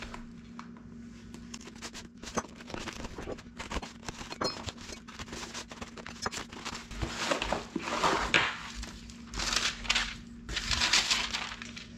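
Hands tearing the packing tape and flaps of a cardboard shipping box, then pulling out paper and bubble-wrap packing: scattered scratchy tearing and crinkling, getting busier and louder in the second half.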